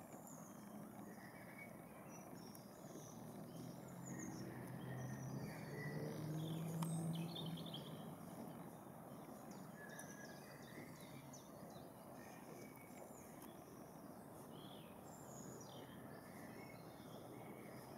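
Faint woodland birdsong: several small birds chirping and trilling. A low droning hum swells and fades in the middle.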